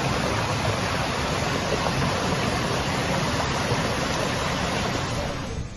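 Heavy downpour and floodwater rushing across a flooded street: a loud, dense, steady hiss that drops away sharply near the end.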